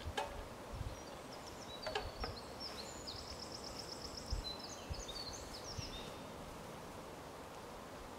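A songbird singing one song phrase of high, quick notes with a fast trill in the middle. A few sharp snaps come near the start and again about two seconds in, over steady outdoor background noise.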